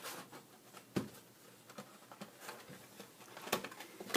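Hands handling and opening a cardboard model box: faint rustling and scraping of cardboard, with a sharp tap or click about a second in and two more near the end.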